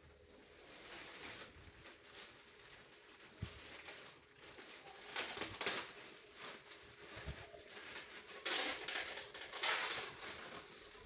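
Packaging of a newly unboxed speaker being handled: irregular rustling and crinkling, with louder bursts about halfway through and again near the end.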